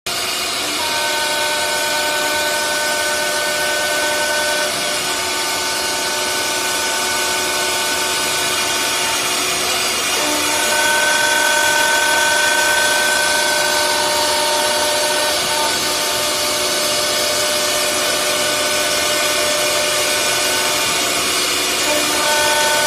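CNC door lock and hinge mortising machine running, its router spindles giving a steady high whine over the hiss of cutting wood. The whine tones shift and change pitch a few times as spindles switch or the cut moves.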